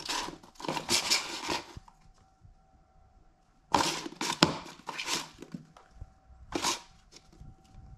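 A ball rolling and rattling around the plastic track of a circular cat toy as a cat bats it through the holes. It comes in three bursts: one lasting nearly two seconds, another about four seconds in, and a short one near the end.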